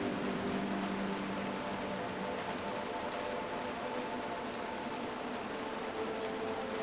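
Steady rain falling, an even hiss with fine drop patter. A few faint steady tones sound under it, lower at the start and a little higher later on.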